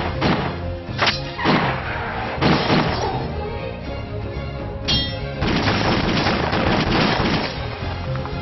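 Action film trailer soundtrack: music punctuated by a pistol shot at the very start, then sharp hits about a second, a second and a half, two and a half and five seconds in. A couple of seconds of dense rushing noise follow.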